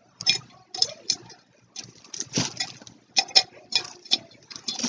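Objects being handled by hand: an irregular run of short clicks, taps and brief rustles, about a dozen in all, as an item is taken out of a box and its packaging.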